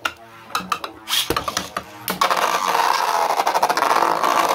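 3D-printed beyblades spinning in a plastic Beyblade stadium. A few sharp clicks come first, then from about halfway a steady, dense rattling whir as the tops run across the stadium floor and knock together.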